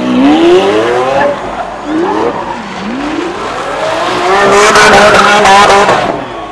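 Car engine revved hard several times, its pitch climbing with each rev and held high near the end, with tyres squealing for about a second and a half around four and a half seconds in, as in a burnout or donut.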